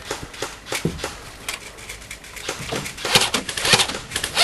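Airsoft guns firing scattered shots: irregular sharp clicks and pops that grow denser and louder about three seconds in.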